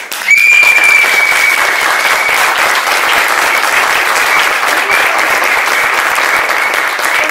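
Audience applauding, starting suddenly, with one long high note held over the clapping for about the first two seconds.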